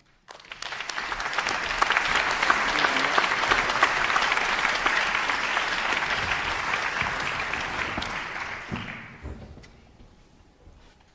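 Audience applause in a concert hall, starting suddenly and dying away about nine seconds in.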